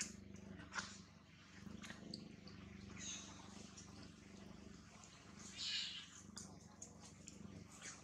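Faint sounds from a group of macaques: a low steady hum, with a few sharp clicks and a short hiss-like burst about five and a half seconds in.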